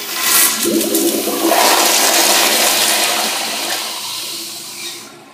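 Crane toilet flushing: a sudden loud rush of water swirling down the bowl, a strong flush that fades over the last couple of seconds and dies away about five seconds in.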